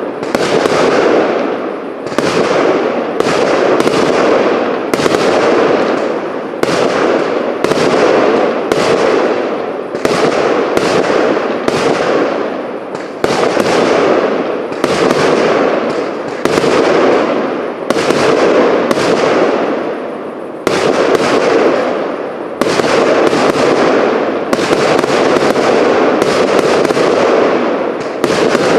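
A fireworks cake (compound battery) firing a steady volley, shot after shot at about one to two a second. Each report is sharp and fades off in a short rush of noise.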